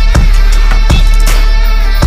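Loud electronic music with a heavy bass and a steady, evenly spaced drum beat.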